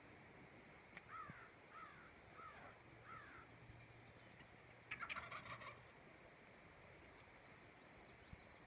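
Four short, descending turkey yelps, evenly spaced, followed about two seconds later by a wild turkey tom gobbling once, faint and rattling.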